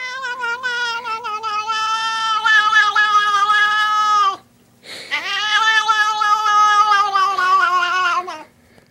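Domestic cat giving two long, drawn-out weird meows, each about four seconds with a short break between. The pitch wavers slightly and sags at the end of each.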